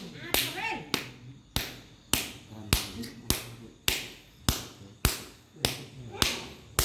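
A hand slapping wetted skin in a steady rhythm: about a dozen sharp, evenly spaced slaps, a little under two a second.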